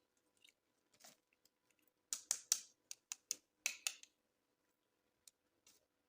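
Close, crisp clicks and crackles of toy packaging and plastic toy parts being handled during unboxing: a quick run of about eight sharp clicks around the middle, with lighter scattered taps before and after.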